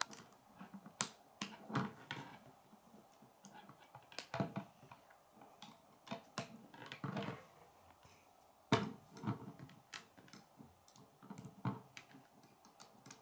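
Plastic K'nex rods and connectors clicking and snapping together as they are handled and fitted, in irregular clicks with a louder one about nine seconds in.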